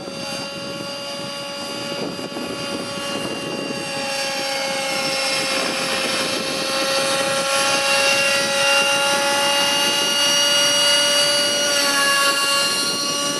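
Nitro-engined Align T-Rex 600 radio-controlled helicopter in flight: a high, steady engine whine with the rotor, growing louder as it comes close on a low pass, its pitch dipping a little near the end as it goes by.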